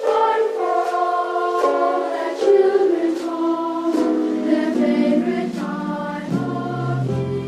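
Background music: a choir singing sustained chords, with lower bass notes entering about three-quarters of the way through.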